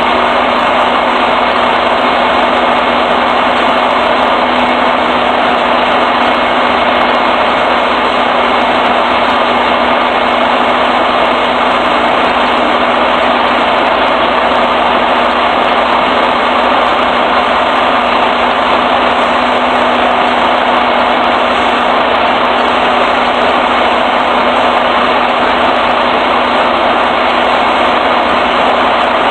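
An engine idling steadily and loudly, with a constant hum and no change in speed, typical of a truck idling at a fuel pump.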